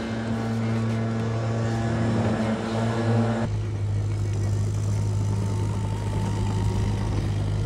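Steady motor drone of a vacuum cleaner running, then, after a cut about three and a half seconds in, a different, lower steady engine hum with a faint wavering tone above it.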